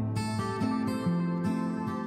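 Gentle background music led by acoustic guitar, with plucked notes changing every half second or so.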